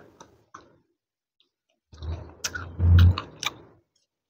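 Close-up eating sounds of instant noodles: wet mouth clicks and chewing. A few clicks at the start, a pause, then a denser run of clicks over a heavy low thump that is loudest about three seconds in.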